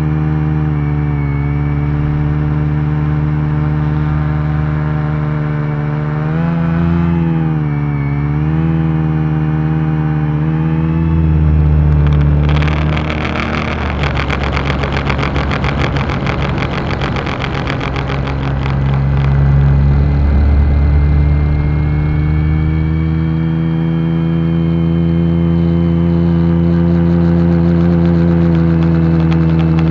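Multirotor drone's electric motors and propellers humming in flight, heard from the drone's own camera. The pitch wavers for a few seconds about a quarter of the way in, a rushing propeller-and-air noise takes over from a little before halfway to about two-thirds of the way through as it flies forward, then the hum steadies and rises slightly.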